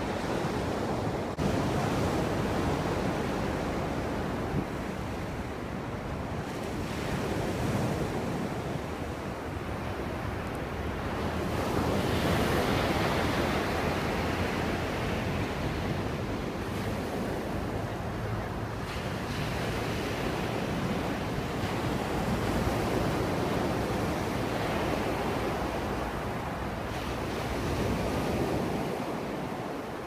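Sea surf breaking and washing up a sandy beach: a continuous wash that swells and ebbs slowly, loudest about twelve seconds in.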